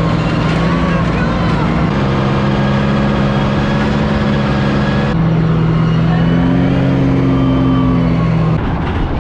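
M4 Sherman tank running loud and steady as it drives along a dirt track, its engine note and track noise heard from on top of the hull. The engine tone shifts abruptly in pitch three times.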